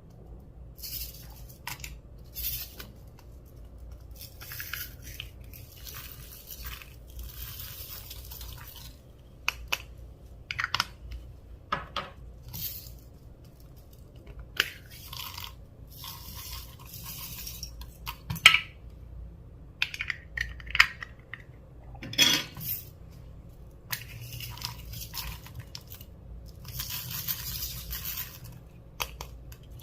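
Clear slime being worked by hand, giving irregular sticky crackling and squishing with scattered sharp clicks and taps, two of them louder than the rest.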